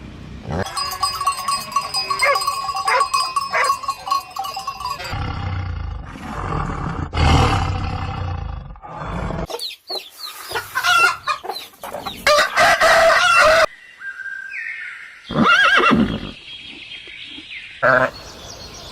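Farm animal calls in several short recordings that change abruptly one after another, with a rooster crowing among them.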